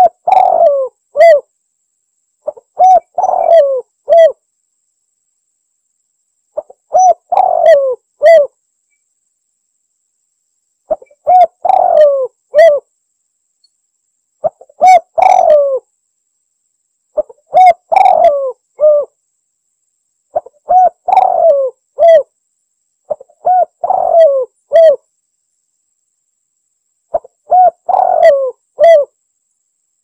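Spotted dove (tekukur) cooing: about nine phrases, one every three seconds or so, each a few low coo notes with a longer falling note before a short final one.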